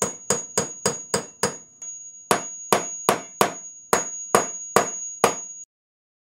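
Claw hammer driving a metal spike into a painted panel: a quick, even run of about fourteen blows, some three a second, each with a bright metallic ring. There is a brief pause about two seconds in, and the blows stop abruptly near the end.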